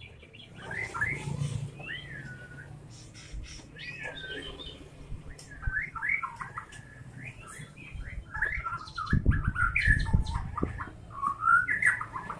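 White-rumped shama (murai batu) singing: a continuous run of varied whistled phrases that glide up and down, broken by short pauses, over a steady low hum. A few low thumps come about eight to eleven seconds in.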